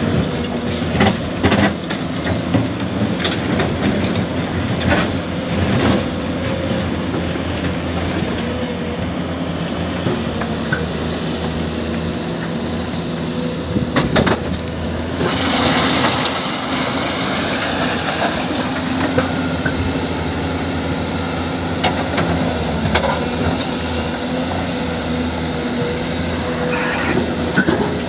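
A hydraulic excavator's diesel engine running steadily, with scattered knocks and clanks in the first few seconds and a short rushing noise about halfway through.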